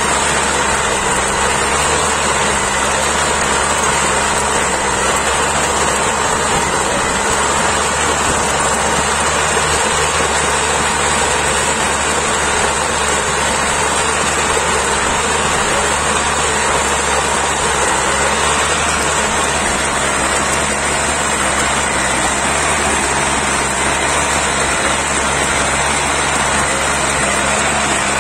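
Minarelli engine of a 35-year-old Benassi walk-behind tiller running steadily as it cultivates between rows of beans.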